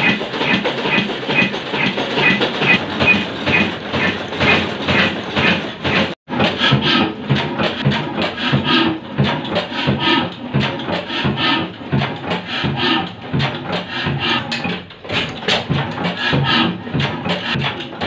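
Fine Mughal Son slow-speed horizontal oil engine (22 HP, 275 rpm) running, with a steady beat of about two to three knocks a second. The sound cuts out for an instant about six seconds in, then the engine runs on with a busier clatter of knocks.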